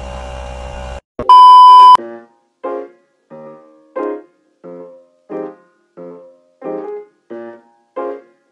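A steady machine hum, likely the cordless air compressor running, cuts off about a second in. A loud steady beep follows, then keyboard music with evenly spaced notes about every two-thirds of a second.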